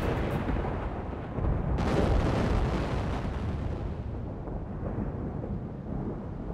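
Deep rumbling boom sound effect for an animated logo, with a second swell about two seconds in that then slowly dies away.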